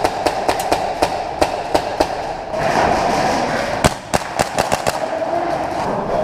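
Airsoft guns firing: a string of sharp, irregularly spaced cracks, with a quicker run of shots about four seconds in.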